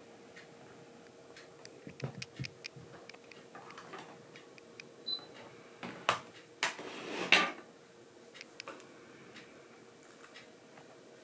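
Soft scattered clicks and rustling as two kittens scuffle and paw on a fleece blanket in a lap, with a louder stretch of fabric rustling about six to seven and a half seconds in.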